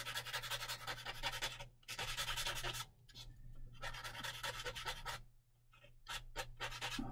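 Small abrasive stick rubbed in quick back-and-forth strokes over a small plastic model-kit part, filing away leftover flash. The strokes come in spells with a few brief pauses.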